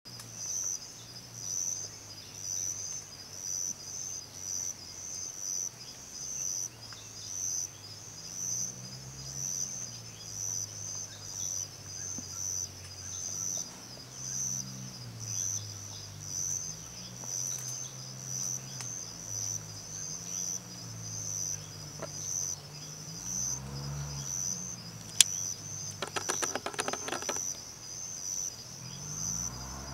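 Insects chirping outdoors, an even high-pitched chirp repeating a little more than once a second throughout, with a low hum that swells and fades beneath it. Near the end comes one sharp click, the loudest sound, followed by a quick run of clicks.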